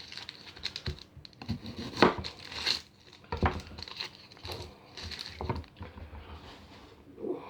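Dry onion skins crinkling as onions are handled and peeled, with irregular light knocks of the onions and a knife on a chopping board.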